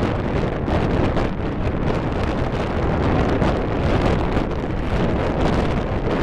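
Strong wind blowing hard across the camera's microphone, a steady loud rumbling buffet with no pause.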